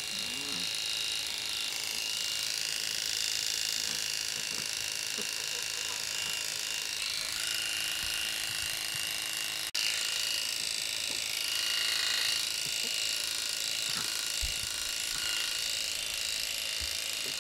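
Electric pet clippers running steadily as they shave through a Persian cat's matted, damp coat, with a high-pitched buzz. The sound cuts out for a moment about ten seconds in.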